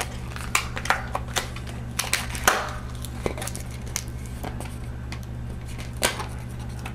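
Latex twisting balloon (a black 160) being knotted by hand: several short rubbery squeaks and snaps, irregularly spaced, over a steady low hum.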